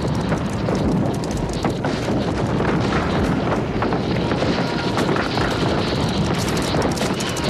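Many horses galloping in a cavalry charge: a dense, steady rumble of hoofbeats with many sharp clicks throughout.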